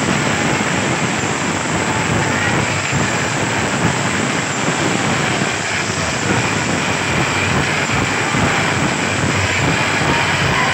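Loud, steady roar of a large packed crowd cheering and shouting, with no distinct words or tune coming through.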